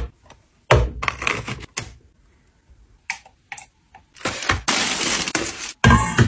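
Kitchen containers and utensils being handled: a series of sharp clacks and clinks, then about a second of steady rushing noise and a few more knocks near the end.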